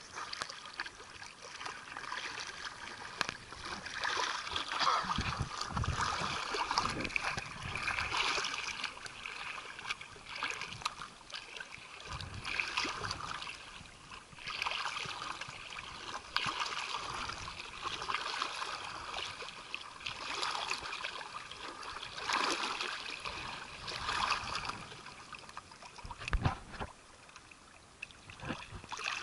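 Sea water sloshing and splashing around a camera held at the surface of shallow water, swelling and fading every second or two, with a few low bumps.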